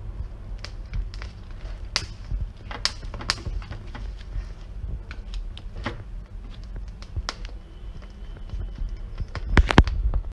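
Corn cob roasting directly on a gas stove burner's low flame: irregular sharp crackles and pops from the kernels over the flame's steady low rush, with a quick run of louder clicks near the end.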